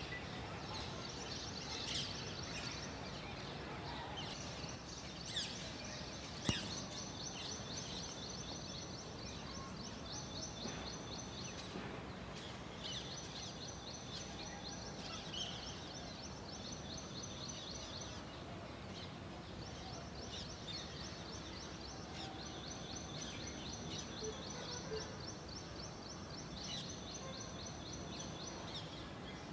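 Birds chirping in the morning: a rapid, high trill repeated in phrases several seconds long with short pauses, over steady outdoor background noise. There is a single sharp click about six seconds in.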